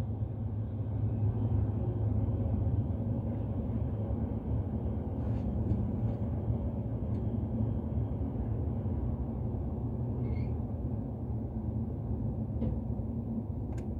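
Steady low rumble of a running car heard from inside its cabin, with a few faint ticks.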